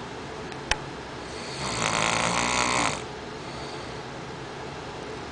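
A sleeping person snoring: one loud, buzzing snore lasting about a second and a half, starting just over a second in, with quieter breathing before and after and the next snore beginning near the end. A short click comes just before the snore.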